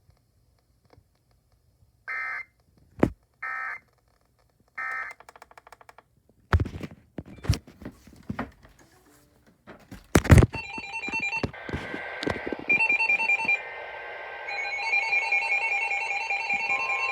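Three short bursts of EAS digital data tones, the end-of-message signal closing an emergency alert, followed by scattered clicks and a sharp thump. Then a rapidly repeating electronic beeping tone pattern.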